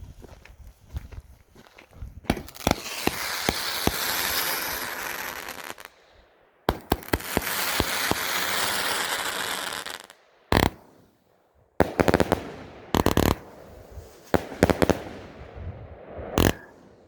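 BEM Medley Pro Series 42-shot fanned firework cake firing in volleys: sharp launch shots, two long swells of dense crackling from the bursting effects, then a run of quick shots near the end.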